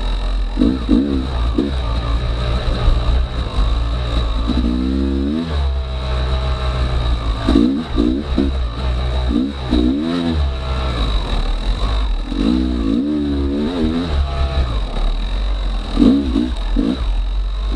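Yamaha YZ250X 250cc two-stroke dirt bike engine being ridden on a trail, its pitch rising and falling in repeated short bursts of throttle over a constant low rumble.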